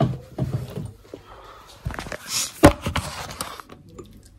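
Handling noise from items on a wooden perfume-bottle shelf: scattered knocks and clicks, with a short hiss and then a sharp knock about two and a half seconds in.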